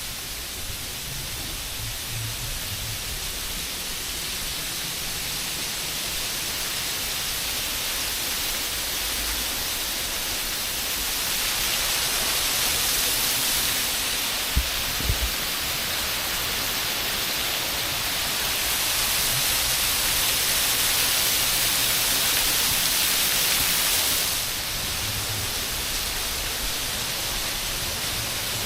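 Steady rushing, hissing noise that swells louder twice and then eases off, with two brief knocks in the middle.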